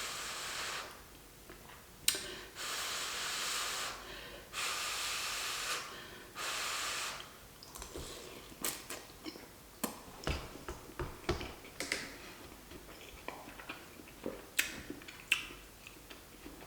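A person slurping ramen noodles in four long sucking draws, then chewing with many short wet mouth clicks.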